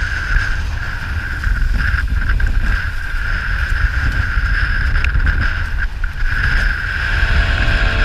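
Wind buffeting the microphone and water rushing past the hulls of a Hobie 16 catamaran sailing fast, with a steady high whine over the rush.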